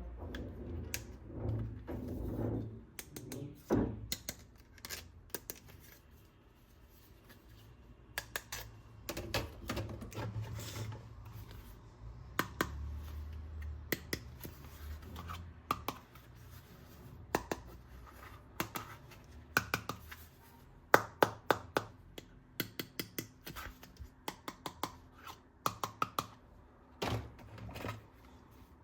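Plastic toy guns being handled during unboxing: many sharp clicks and snaps, some in quick runs, with low rubbing and handling noise in between.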